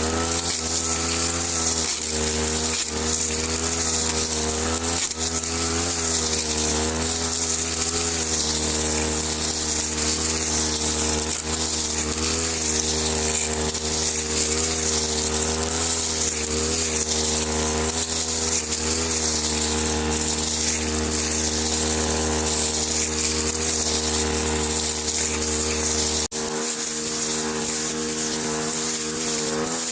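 A small motor running steadily with a buzzing drone whose pitch wavers slightly. A low hum underneath cuts off suddenly near the end while the buzz carries on.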